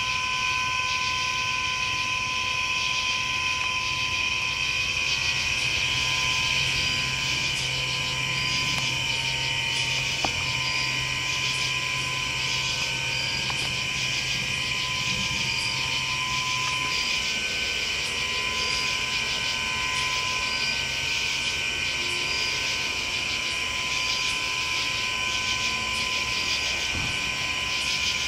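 A steady, unbroken drone of hiss and a few held tones, with faint high ticks about every second and a half. A low hum joins it for a stretch in the middle.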